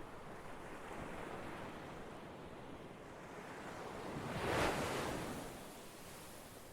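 Ocean waves on a shore: a steady wash that swells as a wave breaks about four and a half seconds in, then recedes.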